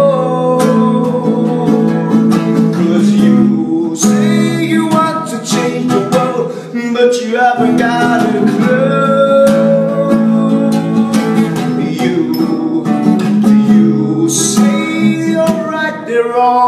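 A man singing while strumming a nylon-string classical guitar.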